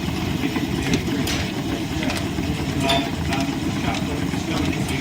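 Line-shaft-driven wood lathe and its overhead shafting and belts running with a steady low drone, with irregular short clicks and scratches over it.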